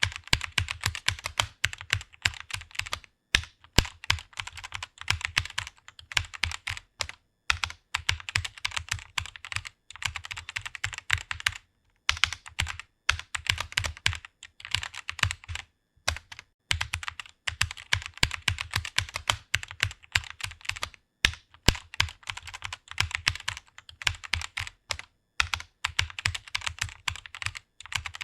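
Computer keyboard being typed on fast: rapid runs of key clicks, broken by short pauses every few seconds.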